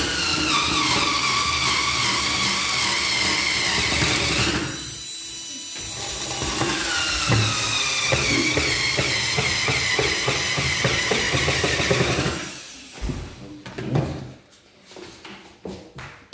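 Cordless electric screwdriver driving screws into plastic electrical boxes on a wooden board: two long runs, the first about four seconds and the second about six, the motor whine dropping in pitch as each screw bites. A few knocks and clicks follow near the end.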